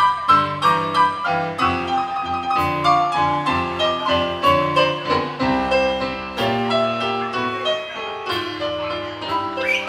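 Live blues-rock band music with a piano-sound solo on a Yamaha CP stage piano out front: quick runs of struck notes over bass and guitar.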